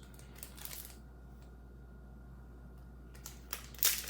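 Low steady room hum for about three and a half seconds, then a few light clicks and rustles near the end as trading cards are handled.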